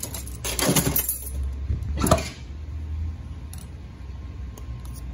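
4L80E transmission clutch plates and other metal parts clinking and scraping as they are handled and seated in the transmission case, with two sharper metal knocks, one just under a second in and one about two seconds in.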